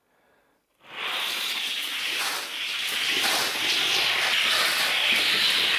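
Toy cars rolling down a plastic track: a steady rolling hiss that starts suddenly about a second in.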